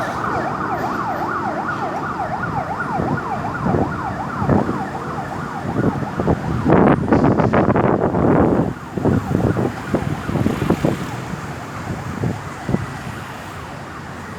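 Ambulance siren on a fast yelp, about three to four rising-and-falling sweeps a second, fading away over the first few seconds. Road traffic noise follows, loudest as a vehicle passes close by about seven seconds in.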